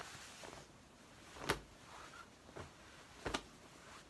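Denim jeans being handled, stretched out and laid down: quiet fabric rustling with three short, sharp handling sounds, the loudest about a second and a half in and another near the end.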